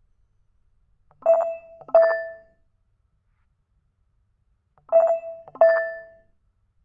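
A ringtone playing through a Nokia 2.3 smartphone's speaker: a pair of short chiming notes, played twice about three and a half seconds apart, each note ringing out and fading quickly.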